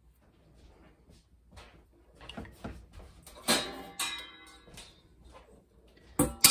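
Metal kitchenware clanking and clattering, with a loud ringing clang about three and a half seconds in, then a stainless-steel colander set down in the sink with a sharp metallic clunk near the end.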